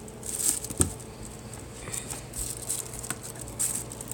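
Light clicking and rustling of plastic K'nex pieces being handled and fitted, with one sharper click about a second in.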